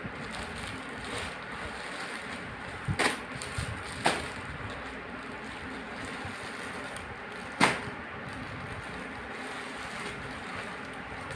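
Plastic-wrapped clothes and a plastic courier mailer bag being handled, with a few sharp clicks and taps over a steady background hiss.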